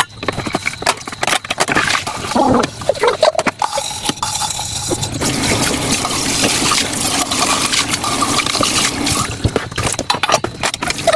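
Water running and splashing, steadiest for a few seconds in the middle, with short clicks and clatter throughout.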